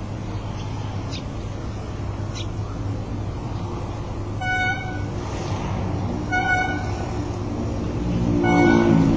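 A horn gives three short, flat-pitched toots about two seconds apart over a steady rumble of road traffic, which swells near the end as a vehicle passes. Two faint high chirps come in the first few seconds.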